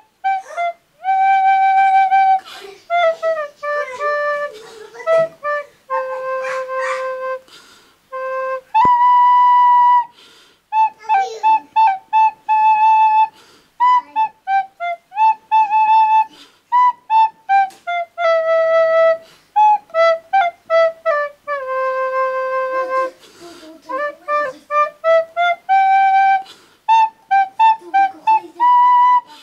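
Plastic soprano recorder played solo: a simple tune in short phrases of separate notes, some held for a second or more, played by a beginner.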